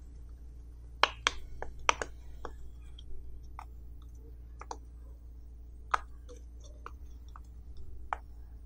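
Bubbles of a silicone pop-it fidget toy being pressed in with fingertips, each giving a sharp pop: a quick run of about six pops around a second in, then single pops roughly once a second.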